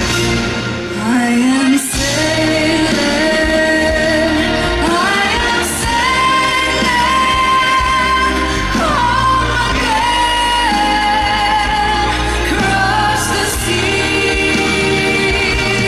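A female pop vocalist singing over band accompaniment, the melody moving up to long held notes.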